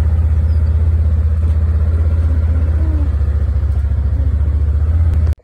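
A small vehicle engine running steadily at close range, with a fast, even low pulse, cutting off suddenly near the end.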